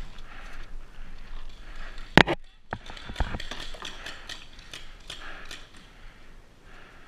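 Paintball markers firing: one loud sharp crack about two seconds in, then a scatter of quicker pops and clicks over the next couple of seconds.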